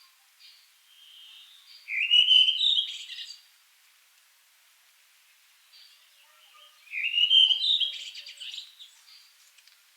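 Redwing singing: two song phrases about five seconds apart, each a rising whistled note followed by a quick twitter, with softer notes in between.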